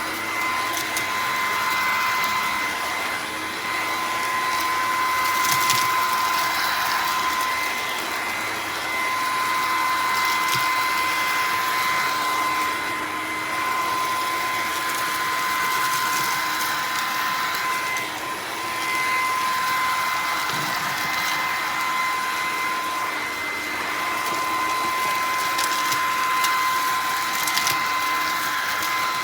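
Bissell PowerClean FurFinder cordless stick vacuum running, a steady high motor whine over a rush of air, with scattered small clicks.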